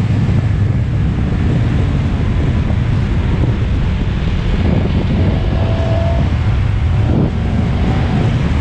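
Heavy wind noise on the microphone over a KTM 1290 Super Adventure's V-twin engine running at road speed.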